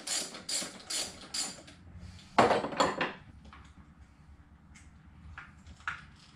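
Socket ratchet wrench clicking in even strokes, about two and a half a second, backing off the shift handle nut on an outboard motor. The ratcheting stops after about a second and a half, followed by two sharp metal clanks half a second apart and a few light clicks.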